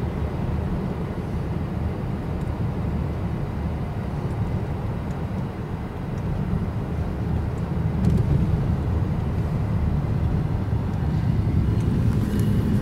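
Steady road and engine rumble of a moving car heard from inside, with an oncoming diesel freight locomotive growing louder as it passes close alongside near the end.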